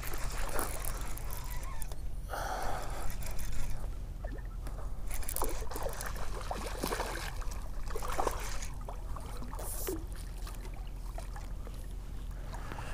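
A hooked bass splashing at the water's surface as it is reeled in to the bank, with scattered clicks and scrapes from the rod, reel and handling of the fish.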